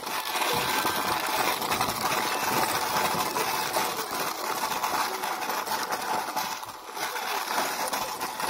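Plastic toy dump truck pushed by hand over dirt ground, its plastic wheels rolling and rattling steadily on the soil.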